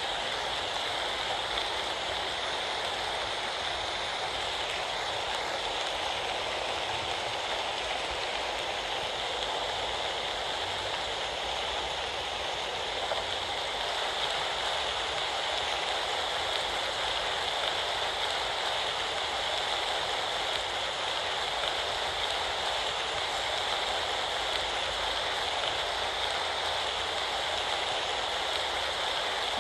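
Steady rain from a rainstorm falling without a break.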